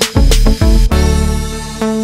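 Background music with a beat and deep bass.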